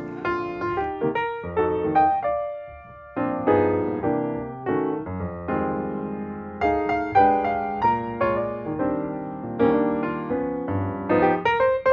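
Piano music: a brisk tune of quick struck notes and chords, with a short pause about three seconds in.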